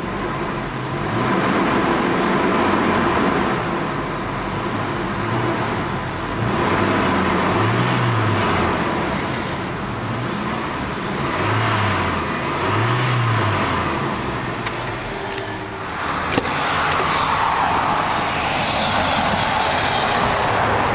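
2006 Chevrolet Colorado pickup's engine running, revved briefly three times with its pitch rising and falling each time. A sharp click about 16 seconds in.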